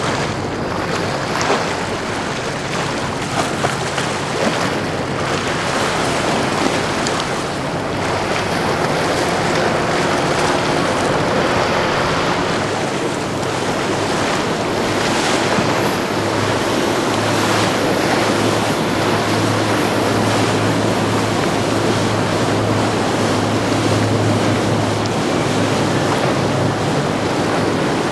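Wind on the microphone over the rush of wake and surf water as motor yachts pass at speed. A steady low engine hum comes in about halfway through as an Azimut 62 flybridge yacht runs by.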